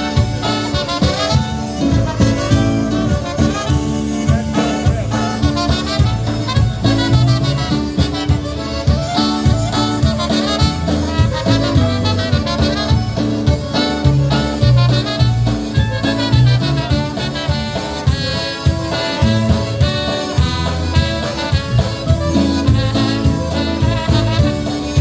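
Live polka band playing a Polish-style polka, an instrumental stretch with horns over a steady two-beat bass-and-drum rhythm.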